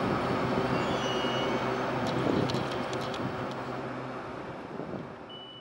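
EMU800 electric commuter train moving slowly at the platform: a steady hum over running noise, with a few light clicks about two to three and a half seconds in. The sound fades out at the end.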